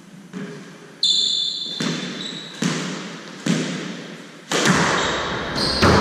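Squash ball bounced on the hardwood court floor three or four times before the serve, then sharper racket strikes and ball hits on the walls as the rally starts, echoing in the enclosed court. Court shoes squeak on the wooden floor about a second in and again near the end.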